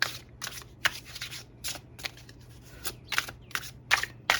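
A tarot deck being shuffled by hand: a run of sharp, irregular snaps of card against card, two or three a second.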